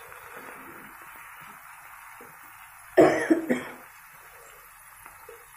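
Fish frying in oil in a nonstick pan on a low flame, a low steady sizzle. About three seconds in, a person gives one short, loud cough.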